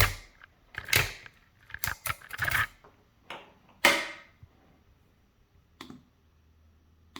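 Irregular sharp clicks and knocks of metal lockpicking tools and a Scorpion CX5 lock being handled and set up, loudest at the start, about a second in and about four seconds in, then sparser.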